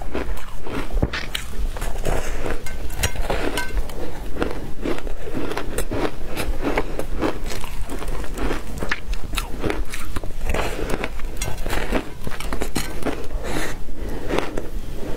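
Frozen shaved ice being bitten and chewed: a quick, uneven run of sharp crunches and crackles as the ice breaks between the teeth.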